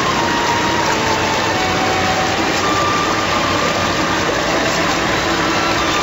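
Automatic food washing machine running: water churning and splashing in its stainless steel tank over a steady machine drone.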